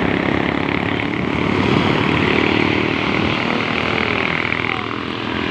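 Large bus's engine running, a steady drone with a faint high tone over it that fades out about five seconds in.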